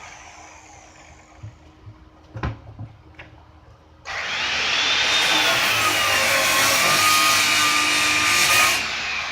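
A circular saw cutting through an old rubber tire: a few handling knocks, then the saw starts abruptly about four seconds in and runs loud with a whining pitch that sags in the middle as the blade works through the tire. It cuts off near the end and begins to wind down.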